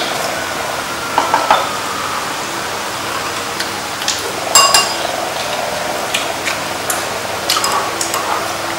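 Chopsticks and spoons clinking lightly against ceramic bowls and plates while people eat, in scattered sharp taps, the loudest few about halfway through, over a steady background hiss.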